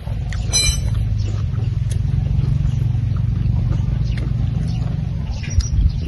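Wind buffeting the microphone as a loud, steady low rumble, with faint small clicks of eating by hand.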